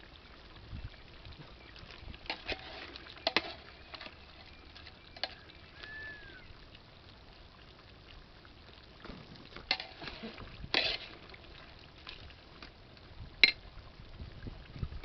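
Scattered light knocks and clinks from a ladle and crab pieces being handled in a large aluminium pot of crab curry, with one sharp clink near the end, over a faint quiet background.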